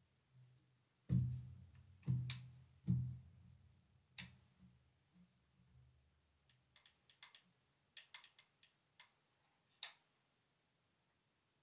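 Dull knocks and sharp short clicks as the ambidextrous safety selector on a KE Arms KP-15 polymer lower receiver is worked by hand, the spring-loaded detent clicking it into position, followed by a scatter of faint, small clicks.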